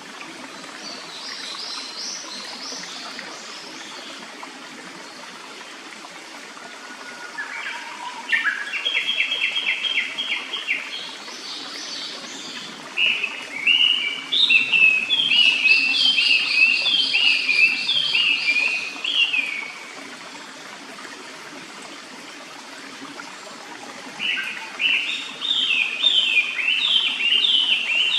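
Japanese paradise flycatcher singing: three bouts of quickly repeated whistled notes, the longest in the middle, with fainter high notes before them. A clear stream runs steadily underneath.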